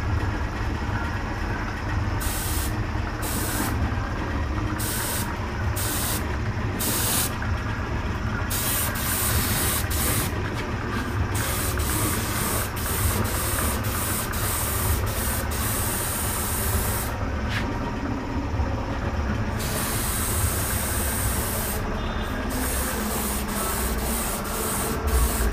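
Gravity-feed paint spray gun hissing as paint is sprayed: several short bursts in the first few seconds, then longer sprays broken by a couple of brief pauses. A steady low hum runs underneath.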